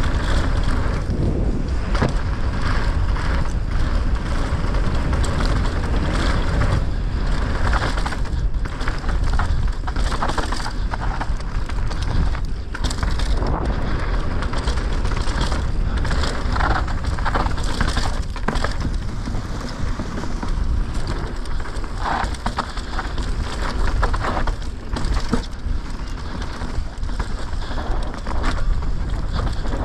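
Downhill mountain bike ridden fast down a dirt trail: tyres rolling and scrabbling over loose dirt and ruts, with a constant rattle and knocking of the bike over bumps. A steady wind rumble on the camera's microphone runs underneath.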